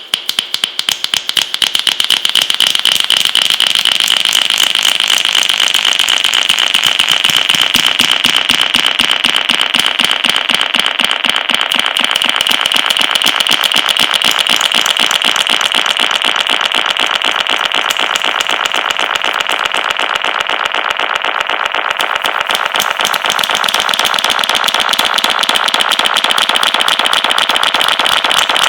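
Finger snaps run through a heavy delay effect: a few separate snaps at the start quickly pile up into a dense, rapid stream of echoing clicks that keeps going steadily.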